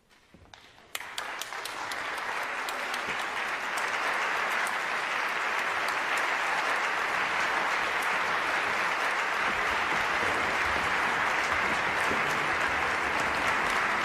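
Concert-hall audience breaking into applause about a second in after a silence, building within a few seconds to steady, dense clapping.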